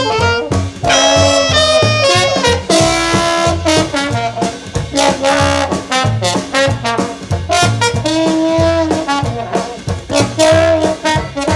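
Swing jazz music with a brass section playing held and moving lines over a steady, even beat.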